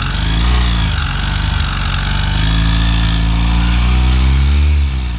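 Yamaha 125 cc single-cylinder four-stroke motorcycle engine running with a loud mechanical noise, its revs rising and falling briefly twice. The noise is a worn balancer-shaft bearing.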